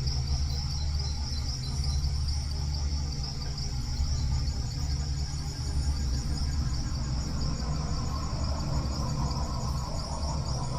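Rainforest insects chirring in a steady, continuous high-pitched chorus, over a low steady hum.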